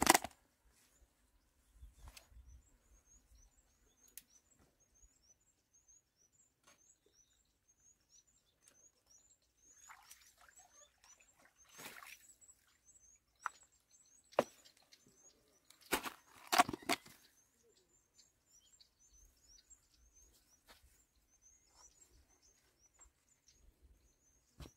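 A small bird calling in a steady run of thin, high chirps, several a second, with scattered sharp knocks and rustles of handling, the loudest at the very start and a cluster about two-thirds through.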